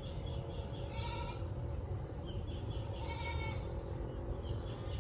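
Two short wavering bleats from a farm animal, about a second in and again about three seconds in, over a steady low rumble of wind on the microphone. High chirps come in short runs between the bleats.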